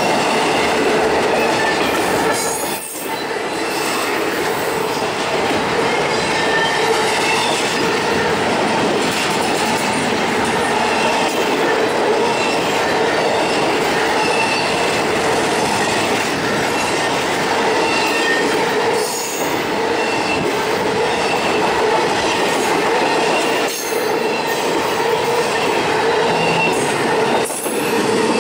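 Intermodal freight cars carrying highway trailers passing close by: a steady loud rumble and clatter of steel wheels on rail, with short high wheel squeals scattered through it.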